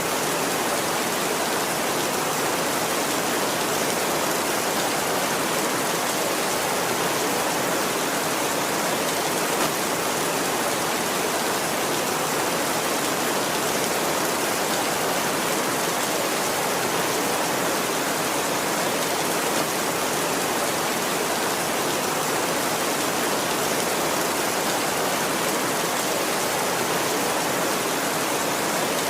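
Heavy rain falling steadily on a tin roof, an even hiss of drops with no thunder.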